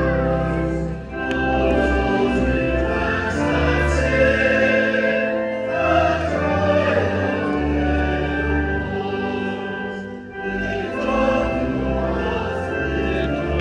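Choir singing a slow hymn in held notes over instrumental accompaniment with a steady bass line.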